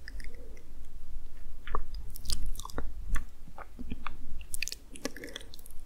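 Soft, irregular clicks and crackles picked up very close to an ASMR microphone, over a low steady hum.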